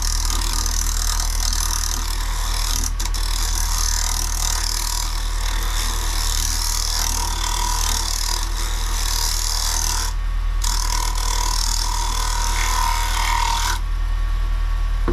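Wood lathe running with a carbide tool cutting the inside of a spinning maple bowl: a steady hiss of shearing wood over the lathe's low motor hum. These are light finishing cuts to smooth the bowl's interior. The cutting breaks off briefly about ten seconds in and stops about a second before the end, while the lathe keeps running.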